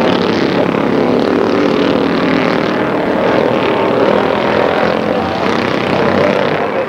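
Engines of historic racing cars running hard past the trackside, a loud, steady mix of engine notes from more than one car.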